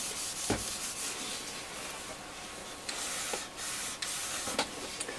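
Cloth rag rubbing Danish oil into a teak radio case panel, a steady scrubbing hiss, with a knock about half a second in and a couple of fainter taps later.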